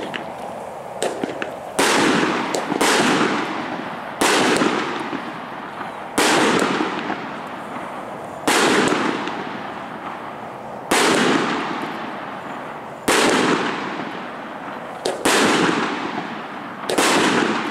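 A Tannerite flash salute cake firing in sequence: nine sharp, loud reports about every two seconds, each trailing off in a long rolling echo.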